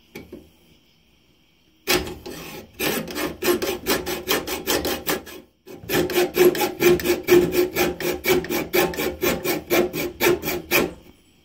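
Hacksaw sawing screwdriver slots into a two-stroke carburettor's adjustment screws with quick back-and-forth strokes, about four a second. It starts about two seconds in and stops briefly halfway through.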